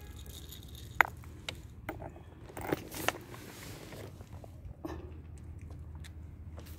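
Scattered sharp clicks and knocks of a piece of glass and feeding things being moved about, the loudest about a second in, over a steady low hum.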